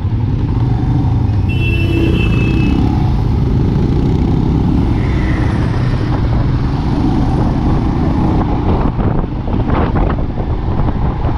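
Royal Enfield Himalayan's single-cylinder engine running while riding, mixed with steady wind rush on the microphone. A brief high tone sounds about two seconds in.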